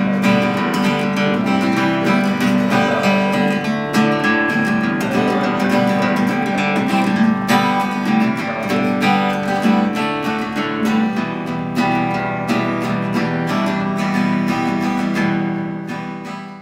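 Acoustic guitar being strummed, chords ringing with a steady strumming rhythm, fading out near the end.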